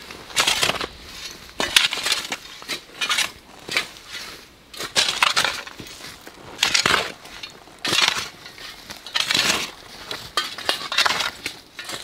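Broken crockery and old glass bottles clinking, crunching and scraping against each other as they are shifted about, in irregular bursts roughly once a second.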